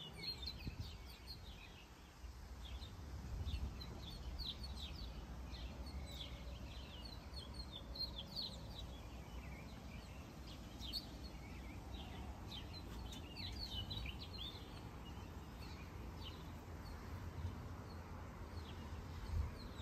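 Wild birds chirping in many quick short notes over a low rumble.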